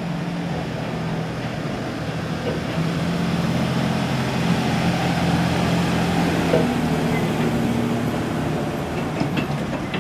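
Tourist road train, a wheeled tractor unit styled as a steam locomotive pulling open passenger carriages, driving past with its engine running steadily. It grows a little louder as it goes by in the middle, and there are a few sharp clicks near the end.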